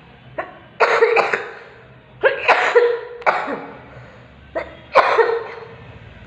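A person coughing hard in three fits of several coughs each, from someone with a bad cough and cold.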